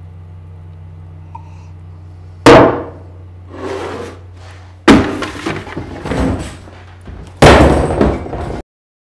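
Steady low room hum, then three loud bangs about two and a half seconds apart, each with a short rattle after it: a mug set down hard on a table and a metal-framed chair pushed back. The sound cuts off abruptly near the end.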